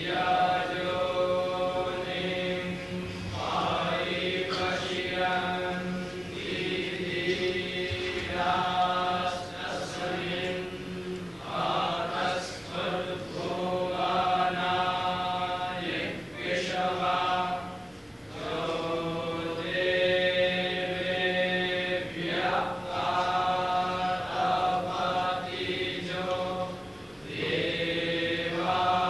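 Vedic recitation: a voice chanting on a few steady, held pitches, in phrases of a few seconds separated by brief breath pauses.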